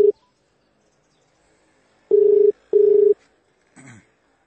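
Telephone ringback tone heard by the caller while the phone rings at the other end. It is a steady low tone in the Indian double-pulse 'ring-ring' cadence: the tail of one pulse at the very start, then a pair of pulses about two seconds in.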